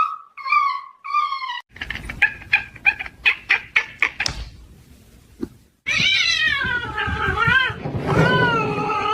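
Cat meowing: three short meows, then a quick run of short calls at about four a second, then two long, wavering yowls.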